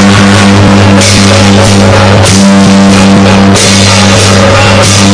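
Loud traditional Taiwanese procession percussion: barrel drums beaten in a steady rhythm while large hand cymbals clash in repeated crashes, over a strong steady low drone.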